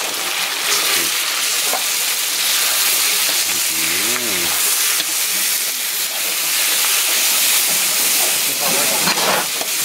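Minced chicken larb mixture sizzling in hot oil in a steel wok, a steady frying hiss, while it is stirred and turned with a metal spatula.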